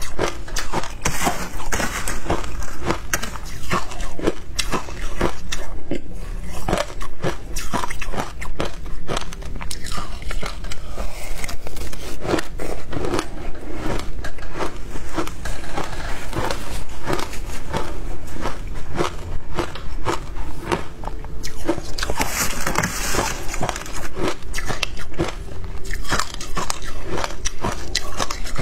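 Close-miked crunching and chewing of shaved ice, a dense run of crisp, irregular crunches as mouthful after mouthful is bitten and chewed.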